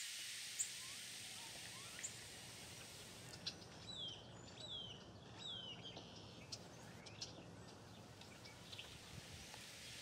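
Louisiana waterthrush calling: three clear whistled notes slurring downward about four to five seconds in, with sharp chip notes scattered through, over a steady hiss of background noise.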